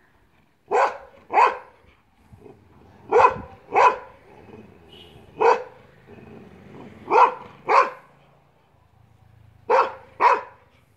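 Bully Kutta dog barking: nine loud barks, mostly in pairs about half a second apart, with short pauses between the pairs.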